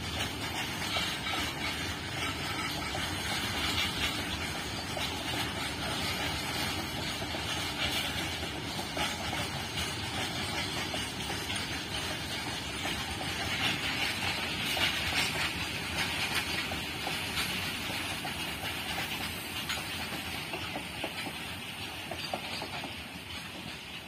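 Freight train of open box wagons rolling past: a steady rush of wheel and rail noise with many small clacks as the wheels cross the rail joints, fading over the last few seconds as the end of the train passes.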